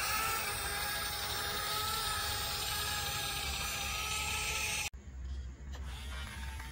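Small electric gear motors of a YIGONG RC toy excavator whining as it drives on its tracks and works its arm, the whine shifting in pitch. It cuts off abruptly about five seconds in and a quieter, slowly rising motor whine follows.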